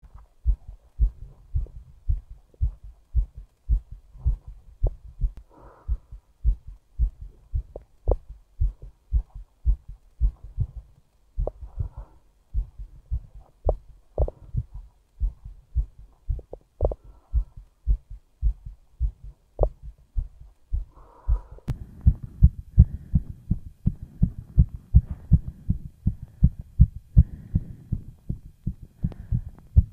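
A fast human heartbeat picked up through a phone pressed against the chest: a steady run of low lub-dub thumps, about two beats a second. About 22 seconds in there is a click, and after it the thumps come through deeper and louder with more rumble.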